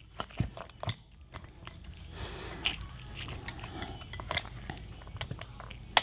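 Scattered light clicks and small knocks as a mobility scooter's front wheel, chrome fork and steel axle shaft are handled and tilted by hand.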